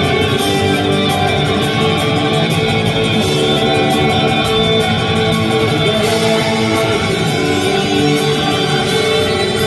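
Live rock band playing an instrumental passage, with electric guitar over drums and cymbals keeping a steady beat. It is loud, full concert sound as picked up from the audience.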